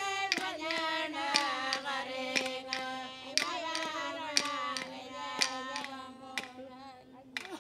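Traditional Anangu Inma song: voices chanting a melody over a steady held low note, with a sharp percussive strike about once a second. The singing fades and stops near the end.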